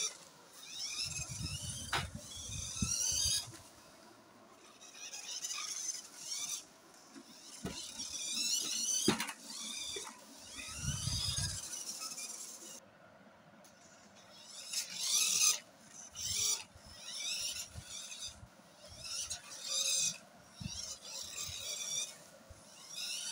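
Battery-powered toy RC monster truck driving in repeated bursts across a smooth tiled floor: its small electric motor and gears whirring and its rubber tyres squealing as it speeds off and turns. A couple of sharp clicks and low rumbles come between the runs.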